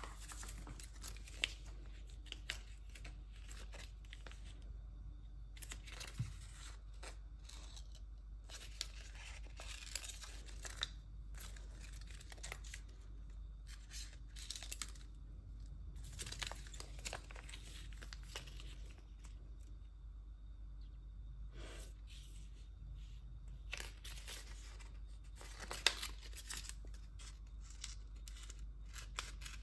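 Clear PET tape crinkling and rustling as it is unrolled and handled, with scattered sharp snips of small scissors cutting pieces from it.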